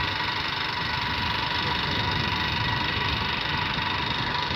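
A vehicle's engine running steadily with a mechanical rattle while driving along a road.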